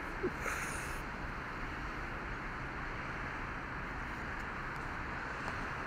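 Steady hum of distant city traffic, with a short hiss about half a second in.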